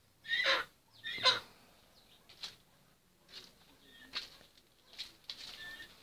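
Passion fruit vine leaves rustling in a few short bursts, the two strongest near the start, then fainter scattered rustles as the phone moves through the foliage.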